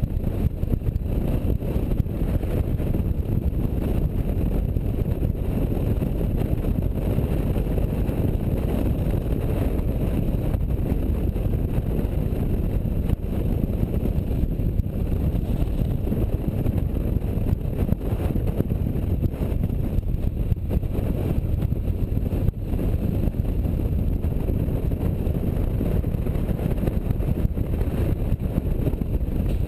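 Touring motorcycle riding at speed: a steady rush of wind on the microphone over the low drone of the engine.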